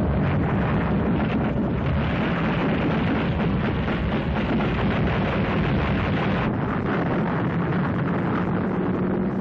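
A steady, dense din of anti-aircraft gunfire and explosions.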